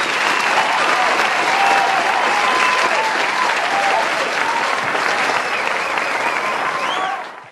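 Crowd applauding and cheering, many voices calling over the clapping, fading out near the end.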